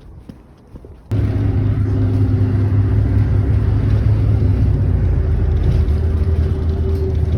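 Faint taps for about a second, then an abrupt switch to a loud, steady low rumble of a vehicle running, with a constant low hum.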